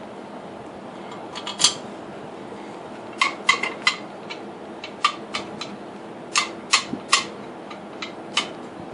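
Sharp metallic clicks and clinks, coming in small clusters every second or two, as the steel clamping bolts and tailstock of a homemade lathe are handled and tightened by hand.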